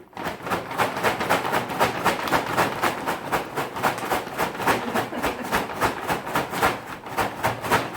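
Popcorn being shaken hard in a bag to coat it with hot caramel, a rattling rustle in an even rhythm of about five shakes a second.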